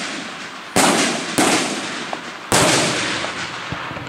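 Daytime aerial firework shells bursting overhead: three loud bangs, two close together about a second in and a third about two and a half seconds in, each dying away slowly in its echo.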